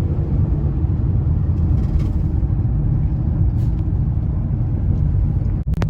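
Steady low rumble of a van driving at road speed, heard from inside the cabin: engine and tyre noise.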